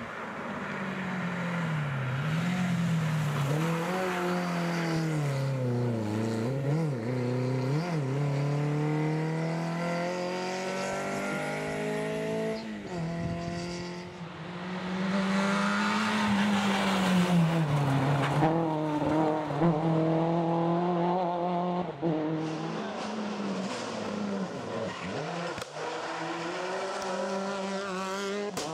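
Rally car engines at full stage pace, revving hard and dropping again and again as the drivers change gear and lift for corners. The pitch climbs and falls throughout, with a few sudden changes where a different car or stretch takes over.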